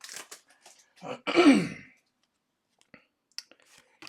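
A man clears his throat once, about a second in, with a falling pitch. A few faint clicks follow near the end.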